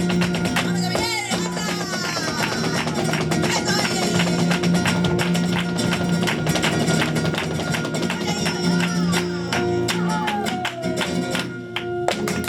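Live flamenco fandango: guitar playing with dense, rapid percussive strikes over it, easing off near the end.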